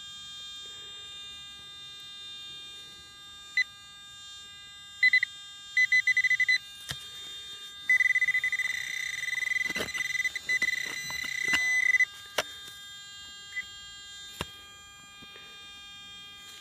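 Garrett AT Gold metal detector signalling over a buried target: a few short beeps, a quick run of pulsed beeps, then a long crackly buzzing tone for about four seconds past the middle, with a few sharp clicks. The detector noise comes from its sensitivity being set too high.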